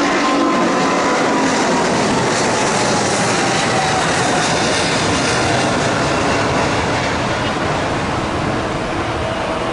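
Emirates Boeing 777-300ER's GE90 jet engines at takeoff power: a loud, steady jet roar with a faint whine slowly falling in pitch, easing slightly near the end.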